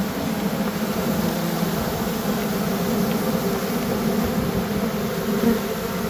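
A mass of honey bees buzzing close up in a steady hum: a colony stirred up as its nest is opened and cut out, with bees streaming out.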